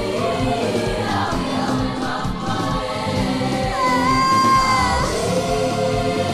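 Choir singing with a backing band over a steady beat. About four seconds in, one high note is held for about a second.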